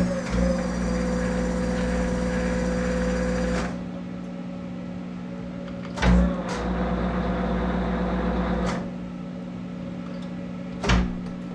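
Monarch 10EE lathe run in reverse in two short spells to bring the threading tool back along the work, with the half-nut still engaged. Each spell starts with a clunk of the drive switching in and runs for about three seconds before stopping. A steady electrical hum from the lathe's drive runs underneath, and another clunk comes near the end.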